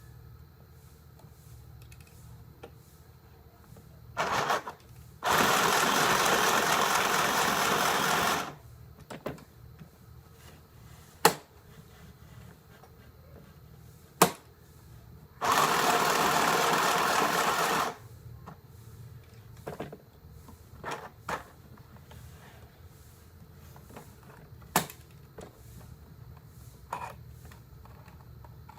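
Mini portable sewing machine running in two steady bursts of about three seconds each, after a short start about four seconds in. A few sharp single clicks come between and after the runs.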